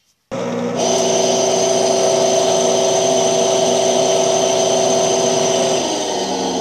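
Electrolux washing machine's motor switching on suddenly and running loud with a steady whine, stepping up about half a second later and shifting in pitch near the end. The repairman puts the noise down to the drive belt having come off and a worn motor bearing.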